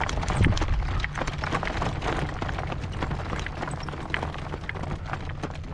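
Horse's hooves clopping at a trot over rocky ground, a run of sharp irregular clicks, under a steady rumble of strong wind buffeting the microphone.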